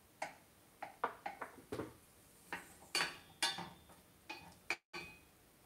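Wooden spoon knocking and scraping against a stainless steel saucepan while stirring diced onion in butter: a string of irregular light knocks.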